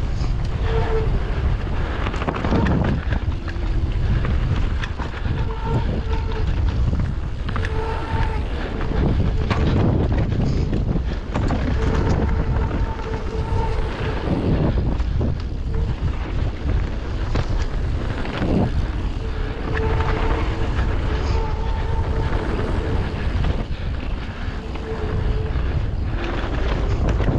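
Mountain bike ride down a rough dirt trail heard from a camera on the bike or rider: heavy wind rush on the microphone over the rattle and knocks of tyres and frame on the bumps, with a short humming tone that comes and goes every few seconds.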